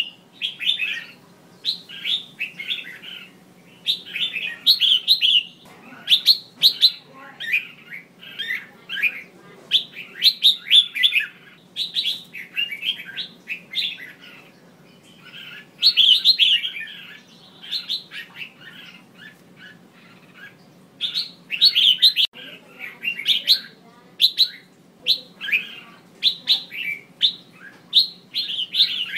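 Female red-whiskered bulbul calling: short bouts of quick, bright chirping notes, a second or so each, repeated with brief pauses. These are the female calls used to rouse male bulbuls into song.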